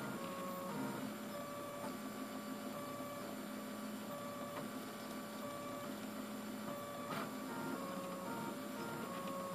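RepRap 3D printer's stepper motors whining as the print head moves back and forth while printing, each move a short steady tone, the pitch changing from move to move. A short tick comes about seven seconds in.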